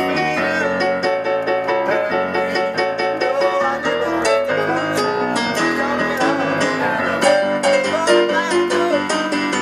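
Electronic keyboard played with a piano sound, chords struck in a steady rhythm as part of a song.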